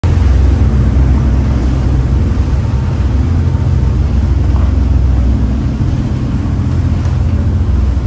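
Viking 64 sportfishing yacht's twin diesel engines running steadily at cruising speed, a loud low rumble, with wind and rushing water from the hull running through rough seas.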